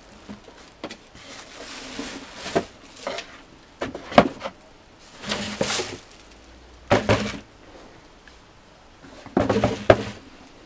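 Plastic wrapping rustling and crinkling in bursts as boots are lifted out of a cardboard shoebox, with several sharp knocks as the box and boots are handled and set down.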